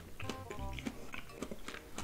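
Mouth chewing a cube of dragon fruit, with short crisp clicks, under background music with a steady low beat.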